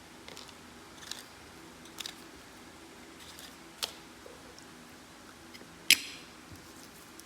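Small metal clicks and taps from watchmaker's tools handling parts of a watch movement during reassembly: a few light ticks spaced about a second apart, then one sharp, much louder click about six seconds in.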